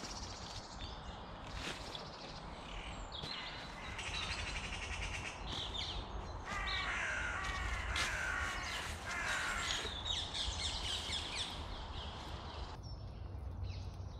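Crows cawing in a run of harsh repeated calls through the middle of the stretch, over smaller birds chirping and footsteps in dry leaf litter.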